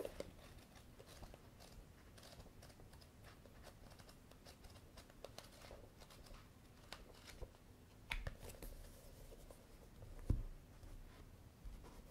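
Faint paper rustling and ticking as the pages of a paperback manga volume are flipped through by hand, with a soft thump of a book on a wooden table about ten seconds in.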